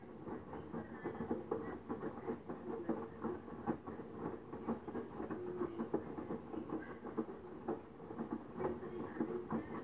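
LG Direct Drive front-loading washing machine tumbling a load of bedding in its wash cycle: wet laundry and water slosh and splash inside the turning drum in a steady run of many irregular short splashes.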